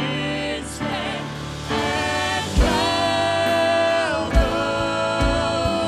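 Live worship music: a man and a woman singing lead, holding long notes over a band with guitar and bass. A few low drum thumps come in the second half.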